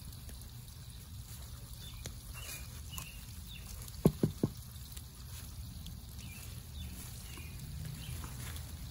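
Soft rustling and scraping of hands working in garden soil and carrot foliage as carrots are pulled from a raised bed, over a steady low rumble. Three quick knocks in a row about four seconds in are the loudest sounds.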